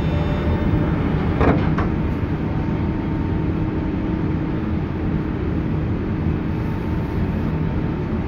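JR 201 series chopper-controlled electric train running, heard from inside the car: a steady rumble of wheels and motors with a faint steady tone. A quick double knock comes about one and a half seconds in.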